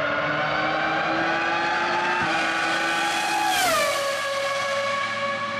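Racing car engine at high revs, its note climbing slowly, then dropping sharply in pitch as it passes by about three and a half seconds in and holding a steady lower note after.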